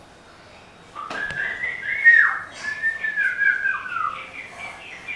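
A man whistling through his cupped hands in imitation of a bird: a run of sliding whistles, several dropping in pitch at the end, starting about a second in.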